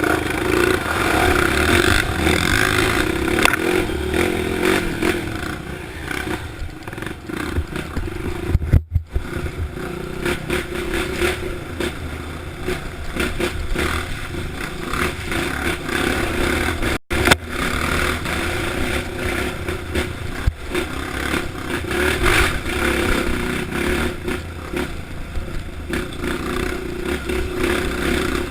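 Honda CRF dirt bike engine running steadily with a deep, thick note under way, mixed with clattering and scraping. The sound drops out briefly twice.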